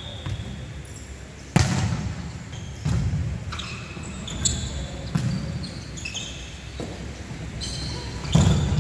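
A volleyball being struck during a rally, each hit a sharp slap that echoes around the sports hall. The loudest hits come about one and a half seconds in and near the end, with softer hits in between and short high squeaks scattered through the rally.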